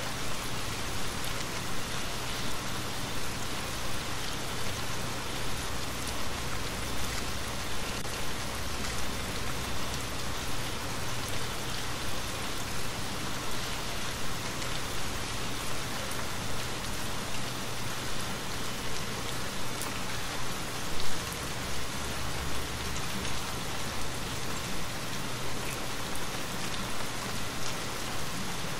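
Steady heavy rain falling, with a constant hiss and frequent light ticks of drops, and one louder tap about three-quarters of the way through.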